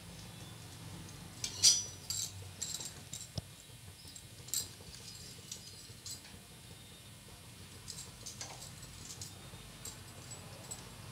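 Metal spoon clinking and scraping against a kadhai while slices of bread are turned in it to roast, with a few sharp knocks, the loudest about one and a half seconds in, then only scattered light clicks over a faint low hum.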